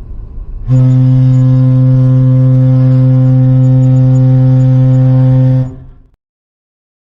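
Ship's horn sounding one long, steady, low blast of about five seconds, rich in overtones, after a brief low rumble; it cuts off with a short fading tail.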